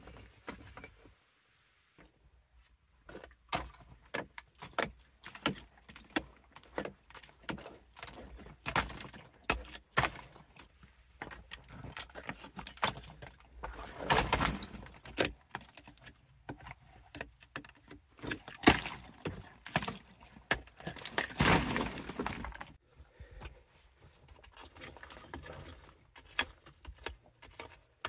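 A small hand tool striking and scraping a cave's fire-heated rock ceiling, with many sharp irregular knocks and chips of rock and grit falling. Two longer crumbling falls come about halfway through and again about three-quarters through, where larger pieces break loose.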